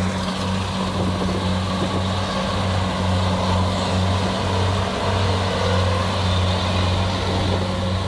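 Kubota DC70 Plus combine harvester running steadily while cutting and threshing rice: a continuous low engine drone that pulses slightly, with machinery noise over it.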